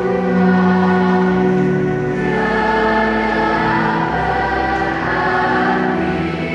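Church choir singing a slow hymn with instrumental accompaniment, in long held notes that change every second or two over a sustained bass.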